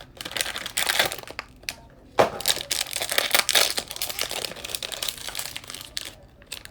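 Plastic blind-bag and box packaging being handled and crumpled: a dense crinkling rustle full of sharp crackles, with a short lull about two seconds in, then dying away near the end.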